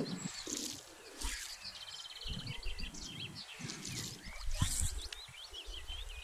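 Small songbirds chirping and singing, with a rapid trill a little over two seconds in, over uneven gusts of wind buffeting the microphone.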